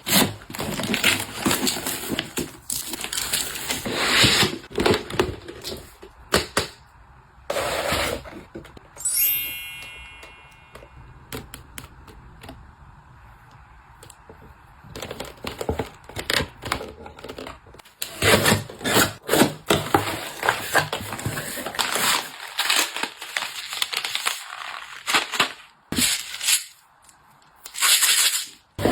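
Close-up handling noises of items being unpacked and put away: repeated sharp clicks, taps and knocks with rustling, in bursts with short pauses, and a brief high-pitched rising tone about nine seconds in.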